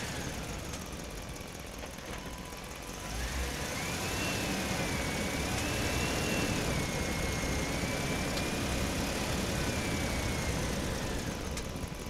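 Truck driving through a parking structure: a steady low engine rumble that grows louder about three seconds in, with a high wavering squeal running over it from then until near the end.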